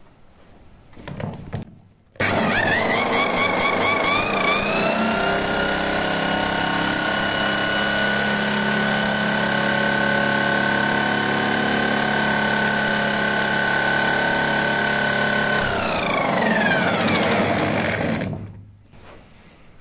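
A bench-test motor spinning a motorcycle magneto flywheel and stator to drive the regulator's charging output. It starts suddenly about two seconds in and rises in pitch as it spins up, then runs at a steady whine. It winds down with falling pitch from about 16 seconds and stops shortly after.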